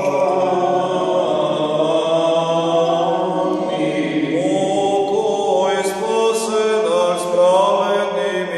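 Slow a cappella Serbian Orthodox chant: voices singing the liturgical response to the priest's prayer for the departed, with long held notes.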